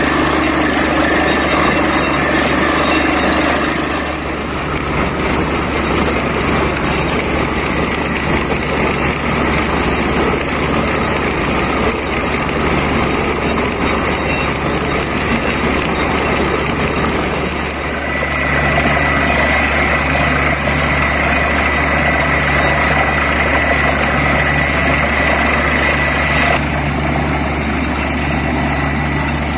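Borewell drilling rig running steadily under load: its engine and air compressor make a loud, continuous mechanical noise. A thin high whine with a slow throb joins about two-thirds of the way in.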